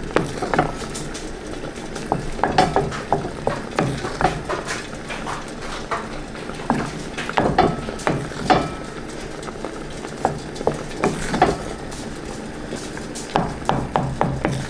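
Wooden spatula stirring melting chocolate in a glass bowl over a pan of hot water, scraping and tapping irregularly against the glass.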